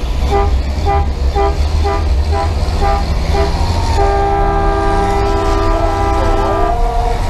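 School bus air horn honking in short blasts about twice a second, then held in one long multi-tone blast of nearly three seconds. Underneath is the heavy, steady rumble of the bus engine heard from inside the cab.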